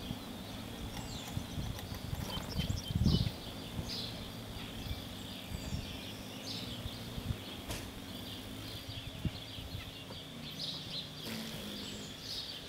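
Garden ambience: small songbirds chirping here and there in the background over a faint steady low hum, with a brief low rumble about three seconds in.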